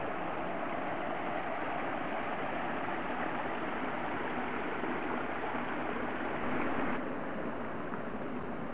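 Small cascade of water running over rocks into a garden stream, a steady splashing rush; it thins out about seven seconds in.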